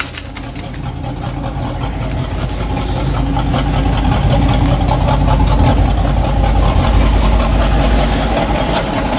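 1984 Chevrolet K20 pickup's engine idling steadily with an even exhaust pulse, growing louder over the first few seconds and then holding.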